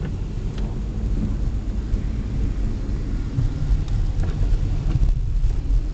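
Low, uneven rumble of a car heard from inside its cabin, with a few faint clicks.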